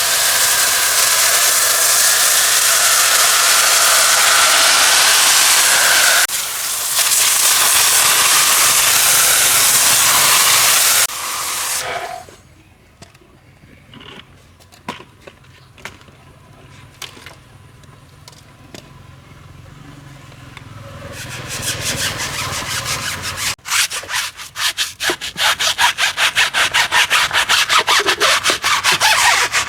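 High-pressure washer spraying with a loud, steady hiss, broken once briefly, that stops a little before halfway. After a quieter stretch of scattered clicks, a brush starts scrubbing in quick rhythmic strokes, about three to four a second, which grow louder toward the end.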